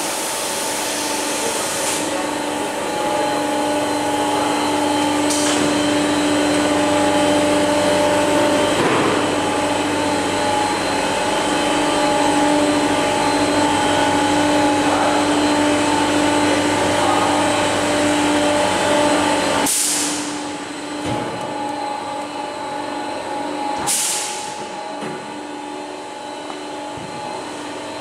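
Machinery of a door-panel laminating line running with a steady hum and several held tones. The hum drops noticeably about twenty seconds in, and short sharp hisses come about 20 and 24 seconds in.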